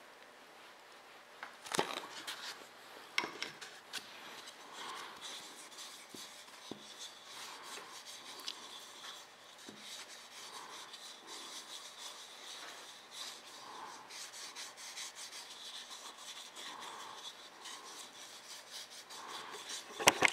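Gloved fingers rubbing walnut oil into the inside of a small turned elm bowl: faint, uneven soft rubbing of glove on wood, with a couple of sharp clicks in the first few seconds.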